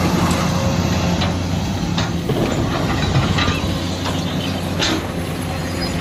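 Excavator engine running steadily, with a low hum and occasional metallic clanks.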